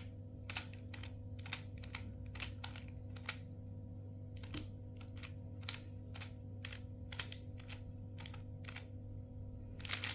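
Speed cube being turned through a ZBLL algorithm at a slow, teaching pace: a run of short plastic clicks, about two a second, with a brief pause near the middle. A steady low hum sits underneath.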